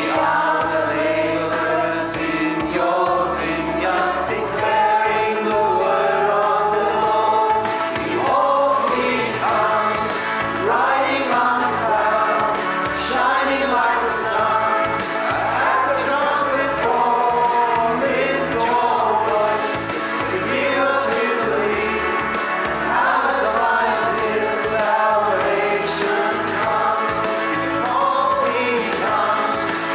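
Choir singing a hymn with instrumental accompaniment, steady and continuous.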